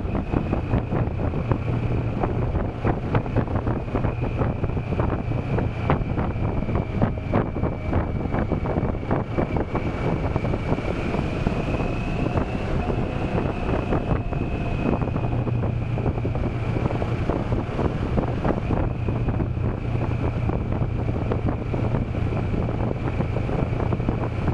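Motorcycle riding at about 40 km/h: the engine runs with a steady low hum under heavy wind buffeting on the microphone.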